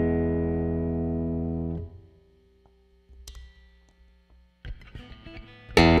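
Michael Kelly Hybrid Special guitar, a semi-hollow electric with built-in acoustic pickup: a chord rings out and fades, is damped a little under two seconds in, a few quiet single notes follow, and a loud, busy strummed passage starts near the end.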